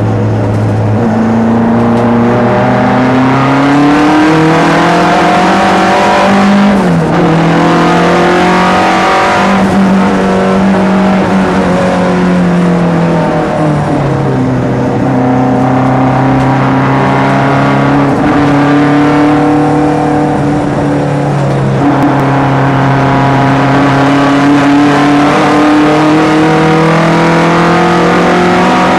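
Turbocharged four-cylinder engine of a SAAB 900 race car heard from inside the cabin under racing load. The revs climb and fall with several gear changes, dropping sharply a few times and holding nearly steady through a long stretch in the middle.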